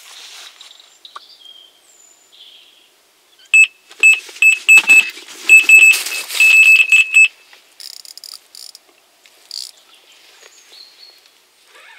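Electronic carp bite alarm sounding a run. High-pitched beeps start about three and a half seconds in, quicken and run together into a near-continuous tone for a couple of seconds, then stop: a fish taking line.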